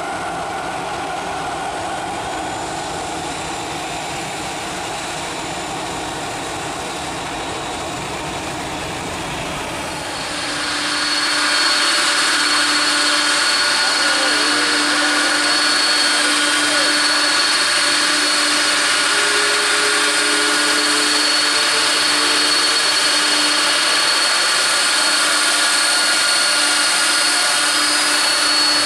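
Twin-engine wide-body jet rolling out on the runway after touchdown, a steady jet roar. About ten seconds in it gives way to a louder, closer Air India Boeing 747-400 taxiing, its four engines running with a steady high whine over the rumble.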